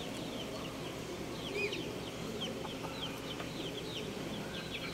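Birds in the yard chirping: many short, high chirps scattered throughout, with a soft low cluck once or twice.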